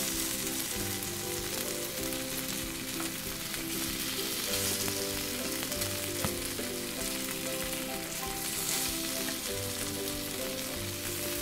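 Crumb-coated tilapia pieces sizzling steadily as they shallow-fry in oil in a nonstick pan, with a couple of light spatula clicks as the pieces are flipped. Soft background music plays underneath.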